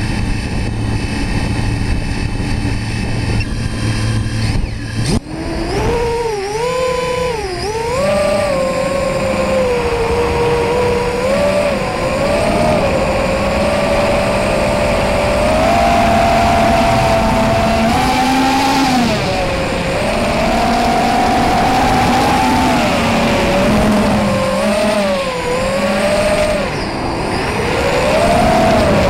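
FPV racing quadcopter's brushless motors and propellers, heard close up: a steady hum while it sits on the grass, then about five seconds in it lifts off and the motor whine rises and falls in pitch with the throttle as it flies.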